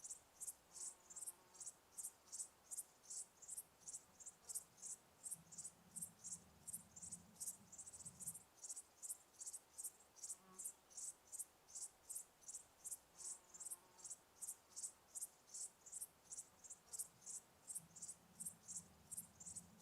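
Cricket chirping steadily in an even rhythm, about two and a half short, high chirps a second.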